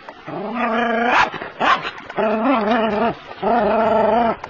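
Dog barking at an anaconda, three drawn-out barks each about a second long.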